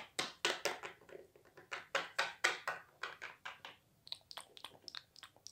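Small plastic toy pet figurines tapped on a tabletop and knocked against each other by hand: a quick, uneven run of taps, turning fainter and sharper after about four seconds.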